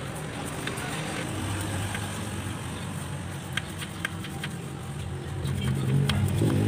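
Scattered light metallic clicks of a thin steel rod being poked into the clogged tubes of a radiator core, over a steady low engine hum that grows louder near the end.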